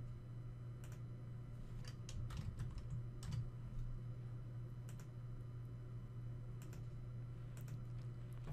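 Computer keyboard and mouse clicks, a few scattered taps and short runs of keystrokes, over a low steady hum.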